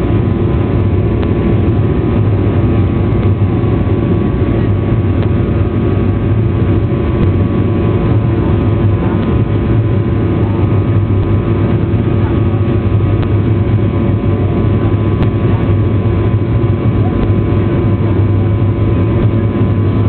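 Jet airliner engines and airflow heard inside the passenger cabin: a loud, steady drone with a low hum and a few held tones over a rushing hiss.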